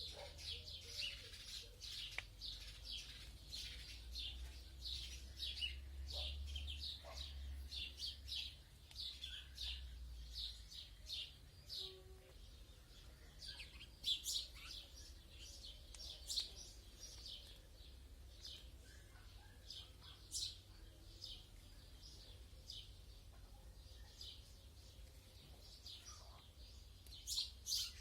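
Small birds chirping outdoors: many short high chirps in quick succession, thinning out about halfway through, over a faint low rumble.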